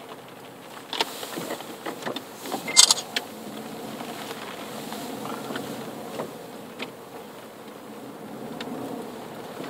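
Car driving slowly, heard from inside the cabin: a low steady engine and road hum with scattered knocks and clicks, the sharpest one just before three seconds in.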